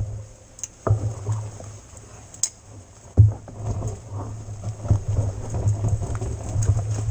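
An e-mountain bike riding over rough ground: a steady low rumble, broken by sharp knocks and rattles from the bike as it hits bumps, about three of them in the first few seconds.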